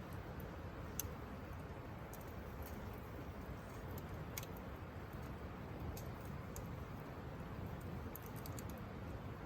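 Campfire crackling: scattered sharp pops and snaps, a cluster of them near the end, over a steady low rushing noise.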